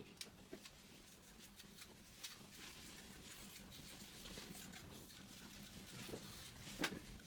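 Faint scattered clicks and rustles over a low steady hum, with one sharper click near the end.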